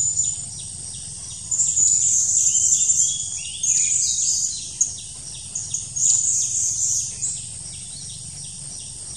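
Shrill, high-pitched chirping calls of blue-crowned hanging parrots, coming in clusters, loudest from about one and a half to three seconds in and again around four and six seconds in.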